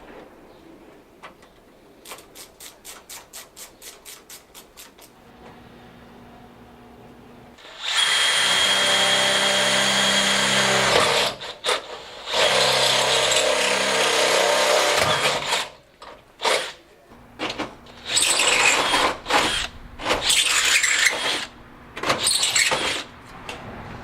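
Power drill running in long bursts, with a brief stop after the first few seconds, then in several short bursts near the end. A rapid run of about four clicks a second comes first.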